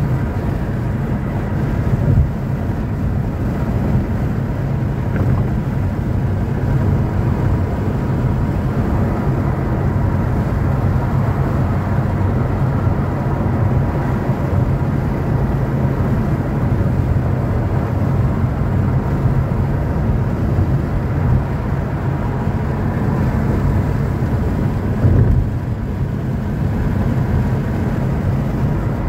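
Steady road and engine noise inside a moving car's cabin, with a brief louder bump about two seconds in and another near the end.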